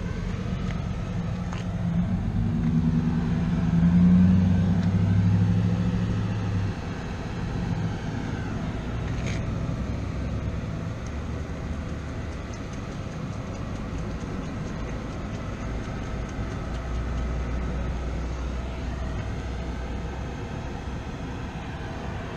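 A motor vehicle's engine running with a low rumble, louder for a few seconds about two seconds in, then settling to a steady low drone.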